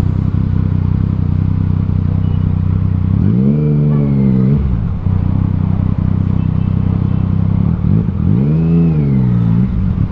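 Yamaha Tracer 900's three-cylinder engine with an Akrapovic full exhaust, running under way in traffic. Its pitch rises and falls twice, about three and eight seconds in, over a steady engine hum.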